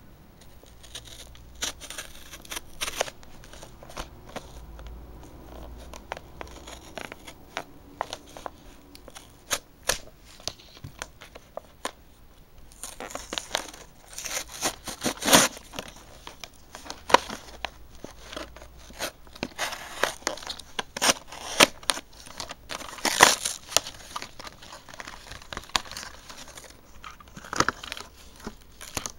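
Clear plastic blister packaging and its cardboard backing crinkling, tearing and clicking as they are pried open by hand to free a diecast model bus. The noises are irregular, with louder crackly spells about halfway through and again later.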